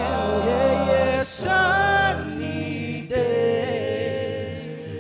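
Male a cappella group singing in close harmony: backing voices hold chords over a steady low bass line, with a higher voice moving above them.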